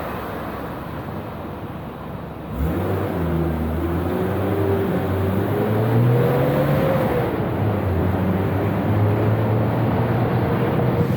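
BMW E34 M5 Touring's straight-six engine pulling away: its note comes in suddenly about two and a half seconds in, climbs in pitch for a few seconds, then settles to a steady cruise. The sound is dulled by the camera's wind filter.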